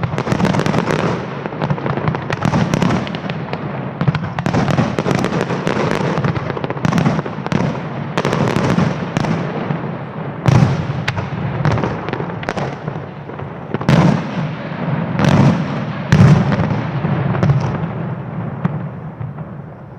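Aerial fireworks display: a dense barrage of rapid, overlapping bangs, with several heavier booms in the second half, dying away near the end.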